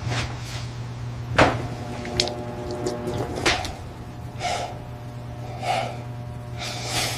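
Muffled knocking and bumping from inside a pantry, as of a cupboard door or shelves being jostled: a sharp knock about a second and a half in and another a couple of seconds later, then softer breathy sounds about once a second near the end, over a steady low hum.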